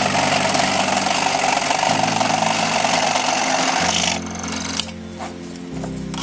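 A power tool running steadily on wood stops about four seconds in, with a few light taps after it. Background music plays throughout.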